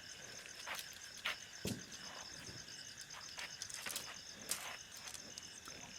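Insects, crickets by the sound, trilling steadily in a fast pulsing high note, with scattered sharp clicks and rustles of tent poles and fabric being handled during tent assembly.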